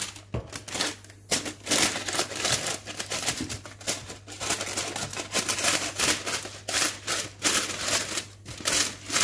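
Baking paper crinkling and rustling as it is handled around a springform pan and cut with scissors, in quick, uneven bursts.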